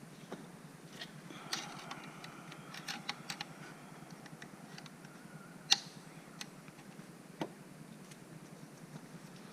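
Scattered clicks and light knocks of hands working to remove a car's engine control module, with one sharp click nearly six seconds in.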